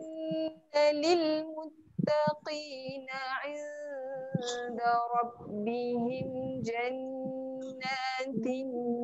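Voices reciting a Quranic verse in a melodic chant, with long drawn-out held notes and short breaks between phrases, heard through a video call.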